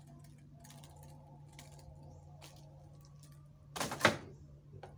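Leather wayang kulit shadow puppets on their rods clicking and rustling as they are handled, then a sharp knock about four seconds in, over a steady low hum.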